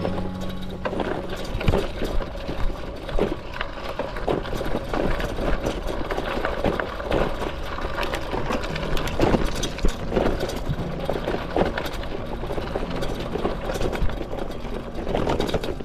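Bicycle rolling over a rutted dirt and grass track: steady tyre and rolling noise broken by frequent irregular knocks and rattles as it jolts over bumps.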